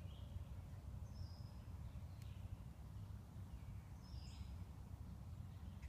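Faint, short, high chirps from small songbirds, three brief calls a second or more apart, over a steady low rumble.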